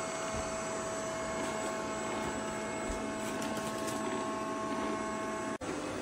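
Robot vacuum cleaner running: a steady whir of its suction fan with a thin whine over it. It drops out for an instant near the end and picks up again with a slightly different tone.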